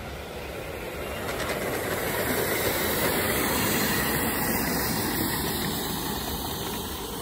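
5-inch gauge live-steam model of the LNER A4 Pacific 60007 'Sir Nigel Gresley' running past with its driver on a riding car behind. The sound grows to its loudest about three to four seconds in, then fades as the train moves away.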